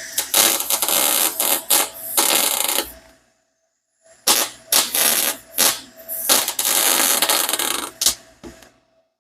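MIG welder arc crackling as an exhaust header is welded, in short runs that stop and restart, with a pause of about a second after three seconds.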